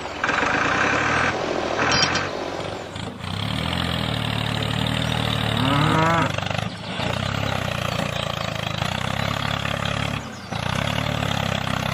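Mini tractor's engine-like motor running steadily, cutting out briefly three times, with a short rising squeal just before the middle.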